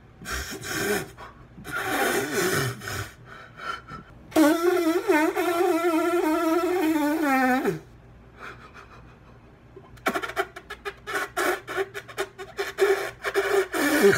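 A man crying: sobbing breaths, then a long wavering wail of about three and a half seconds that drops in pitch as it ends, then a run of quick hitching sobs from about ten seconds in.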